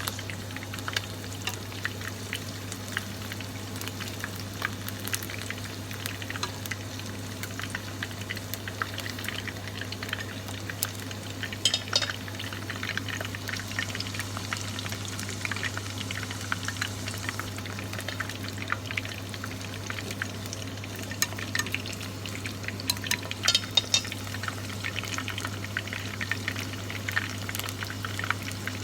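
Pieces of karaage chicken deep-frying in hot oil: a steady sizzle full of fine crackles and pops, with a few louder crackling flurries about twelve seconds in and again near twenty-three seconds. A steady low hum runs underneath.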